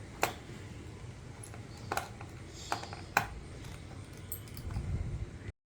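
A small screwdriver working the screws on a laptop's bottom panel: a few sharp metallic clicks and taps over a low steady hum. The sound cuts off suddenly near the end.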